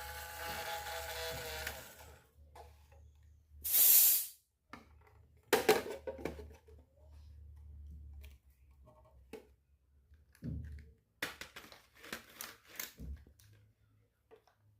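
Miniature toy kitchen pieces being handled. A steady hum runs for about the first two seconds, a short loud hiss comes about four seconds in, then light clicks and rustles of small items follow.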